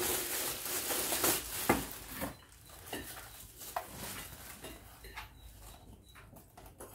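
Plastic wrapping bag crinkling and rustling as a blender's motor base is drawn out of it, with one sharp knock about a second and a half in. After about two seconds the rustling thins to scattered small clicks and handling noises.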